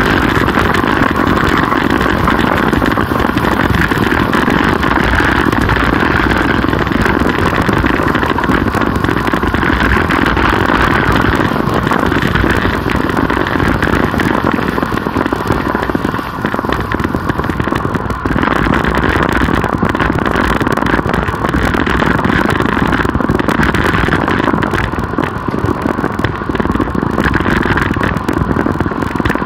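Steady rush of wind and tyre-on-road noise on the microphone of a camera carried on a moving road bicycle.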